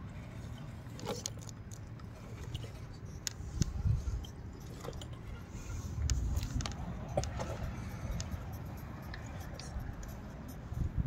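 Low wind rumble on the microphone, with scattered small clicks and crunches from dry, cracked mud crust, louder in a few spells, with no steady motor whine standing out.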